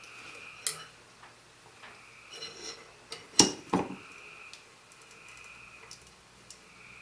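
Steel ball-bearing parts of a drill-press quill clinking and clicking against each other as they are handled and fitted during assembly. The taps are scattered, with a loud pair about three and a half seconds in.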